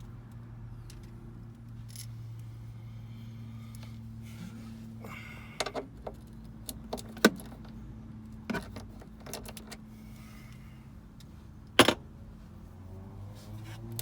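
Scattered metallic clinks and clanks of hand tools and fittings as a battery-to-battery charger is unbolted, the loudest clank near the end, over a steady low hum.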